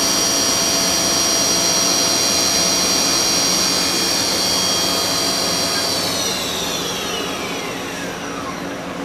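Haas VF3 vertical machining center's 40-taper spindle running at its top speed of 7,500 RPM with a steady high whine. About six seconds in, the spindle is stopped and the whine falls steadily in pitch as it spins down.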